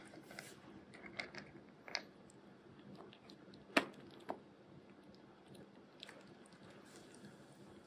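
Kitten eating dry kibble from a plastic bowl: faint crunching and chewing, with a few sharper crunches or clicks scattered through.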